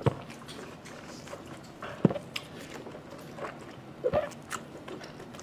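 Close-miked eating sounds of biting into and chewing a blood sausage, with three sharp mouth smacks about two seconds apart and softer chewing clicks between them.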